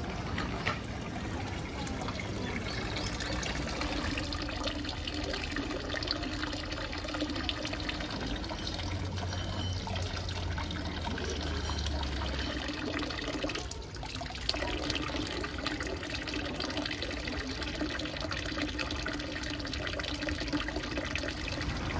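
Hot spring water pouring steadily from a bamboo spout and splashing into a stone basin of a hand bath, dipping briefly a little past the middle.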